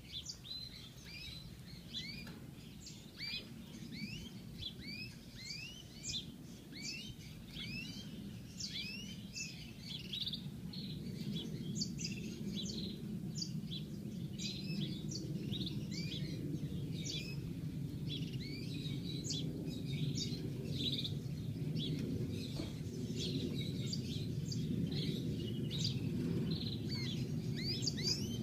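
European goldfinch singing: a continuous run of quick, high, twittering chirps, many of them rising. Beneath it runs a low, steady rumble of background noise that grows gradually louder.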